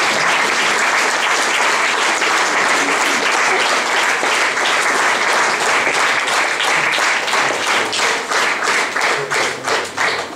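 Audience applauding, a dense continuous clapping that thins over the last two seconds into scattered single claps and dies away.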